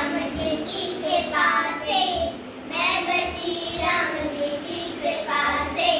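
Young girls singing a song together in high children's voices, in short phrases.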